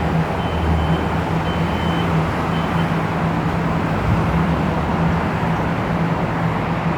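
Dubai Tram moving off from the stop: a steady rumble of the running tram and surrounding traffic, with a faint high tone sounding briefly three or four times in the first few seconds.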